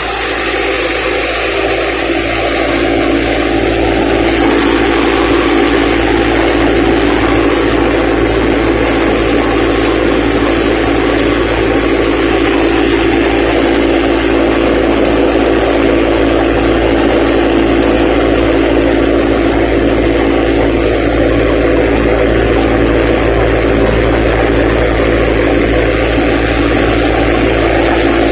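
Harvester engine and machinery running steadily: a loud, even drone with a constant hum under a wide rushing noise.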